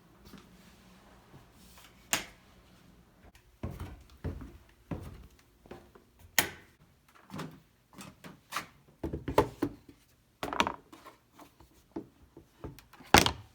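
Irregular knocks, clicks and thuds of things being handled in a small room, scattered through the stretch, the sharpest one near the end.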